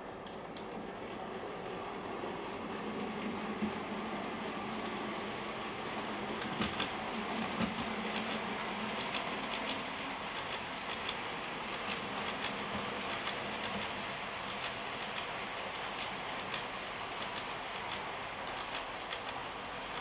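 Model train running on its track: a steady rolling rattle with many sharp clicks as the wagon wheels pass over the rail joints, and a low hum from the running train for a few seconds early on.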